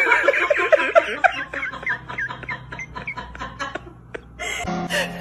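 A person laughing in quick, repeated high-pitched bursts that thin out and stop about three and a half seconds in.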